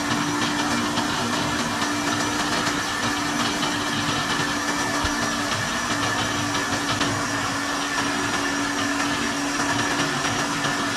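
Countertop blender running steadily with a constant hum, mixing cake batter made from ready-made cake mix.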